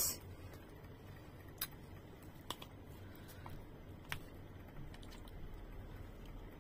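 A few faint, sharp clicks of a plastic fork against a plastic tub as cut mango is picked up, with quiet room tone between them.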